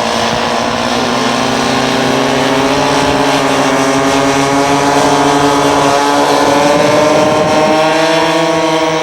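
Engines of a radio-controlled scale de Havilland Mosquito model, a twin-engine aircraft, running steadily, their pitch slowly rising and the sound growing a little louder as they throttle up ahead of takeoff.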